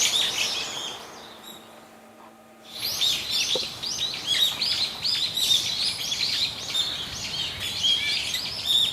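Many small birds chirping and twittering in quick, overlapping high-pitched notes over a faint background hiss; the chirping fades almost away about a second in and comes back densely near the three-second mark.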